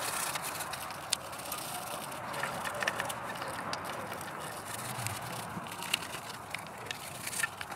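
Stiff hand brush scrubbing gummed-up deposits out of the ports of a 1997 Mustang SVT Cobra's IMRC runner plate: a steady scratchy scrubbing with scattered small clicks and taps against the metal.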